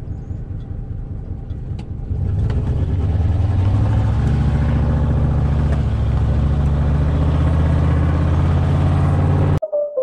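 Truck engine running, getting louder and pulling harder about two seconds in as it accelerates, then holding a steady drone. It cuts off suddenly near the end.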